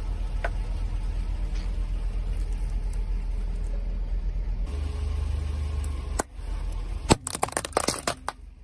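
Car engine running low and steady, then a sharp crack about six seconds in and a burst of loud cracking and crunching for about a second near the end as a tyre crushes something brittle.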